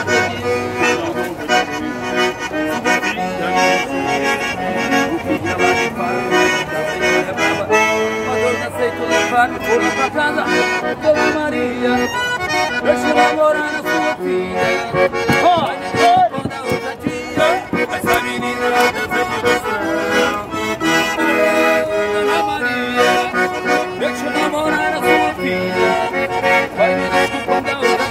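Piano accordion playing a lively forró tune, with melody and chords sounding together.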